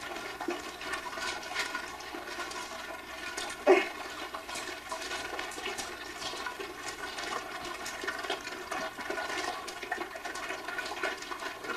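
A litter of puppies eating dry kibble from a shared pan: a steady jumble of crunching, chewing and small clicks, with one short louder noise about four seconds in.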